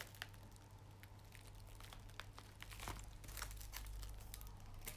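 Faint crinkling and rustling of a diamond-painting canvas's protective release paper being handled, with scattered small crackles.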